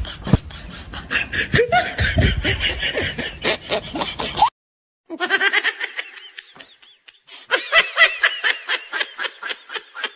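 Laughter in quick repeated bursts. It breaks off abruptly about four and a half seconds in, then starts again.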